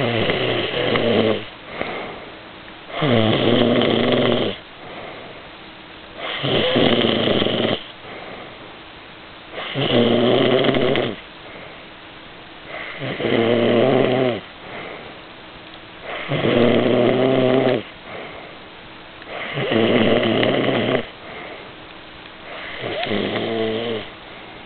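A person snoring loudly in a steady rhythm: eight rumbling snores, one about every three seconds, each lasting about a second and a half, with a softer breath between them.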